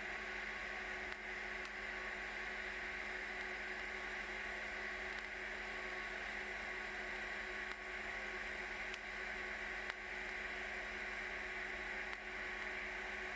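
TIG welding arc with a steady hiss and electrical hum, broken by a few brief dips.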